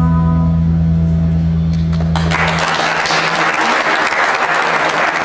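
A jazz band's final chord, a held organ-like chord over a low sustained bass note, ringing out and dying away. The audience's applause breaks in about two seconds in and carries on.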